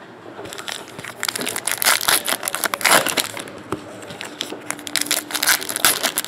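Plastic foil trading-card pack wrappers being torn open and crinkled, a dense irregular crackling that starts about half a second in.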